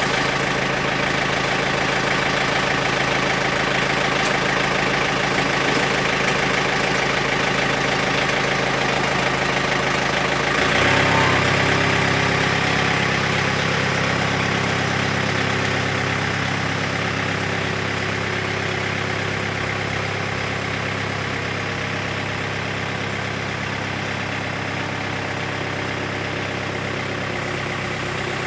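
John Deere compact tractor's diesel engine running steadily, its note changing abruptly about eleven seconds in as the machine is worked.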